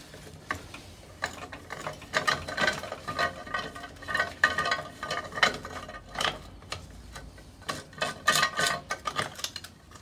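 Hand ratchet with a 10mm socket clicking in quick runs as it undoes a bolt holding the chrome trim on a scooter's front wheel hub, with the odd light metal clink.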